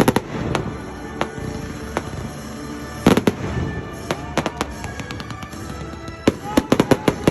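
Fireworks going off: a sharp bang at the start and another about three seconds in, then a rapid string of crackling reports near the end, with music playing underneath.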